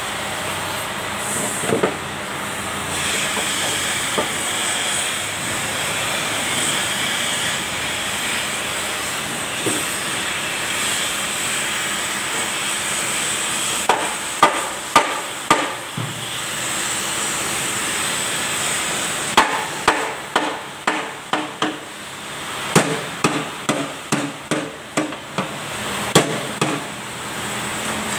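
Hammer blows on the steel of a flail mower rotor assembly, tapping parts into place during reassembly. There is a short group of about four sharp, ringing strikes midway, then a quicker run of about a dozen strikes later on, over a steady background hiss.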